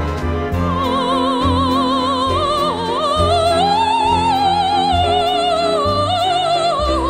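Operatic soprano voice singing sustained notes with wide vibrato, climbing about three seconds in to a high held note, over instrumental accompaniment with a pulsing bass.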